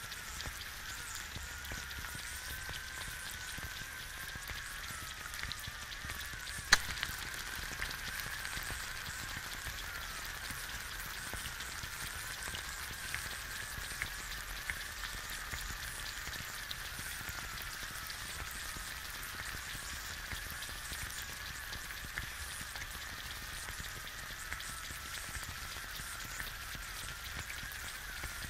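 An egg frying in a pan: a steady sizzle with fine crackles and a faint, wavering whistle-like tone as bubbles form and burst in the white. One sharp pop stands out about seven seconds in.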